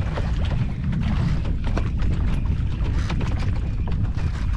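Wind rumbling steadily on the microphone at sea, with faint scattered ticks and slaps of small waves against a small wooden boat.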